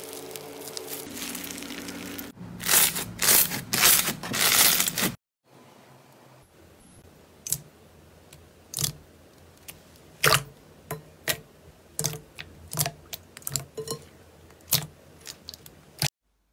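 Foam-bead slime being stretched and pulled apart, crackling and crunching, loudest from about two to five seconds in. After a cut, a hand pressing glossy slime in a glass bowl makes a series of separate sharp clicks and pops, roughly one every half second to second.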